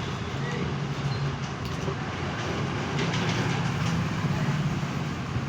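Steady low mechanical hum over a background of noise, with a couple of faint clicks about three seconds in.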